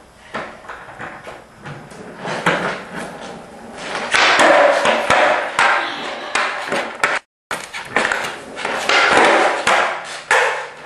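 Skateboard wheels rolling on a concrete garage floor, a rushing roll with clacks and knocks of the board, loudest through the middle and cutting off abruptly partway through.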